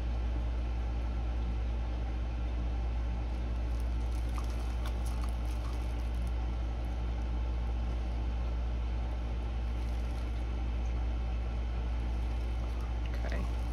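A steady low hum, with a few faint light clicks about four to five seconds in and again near the end.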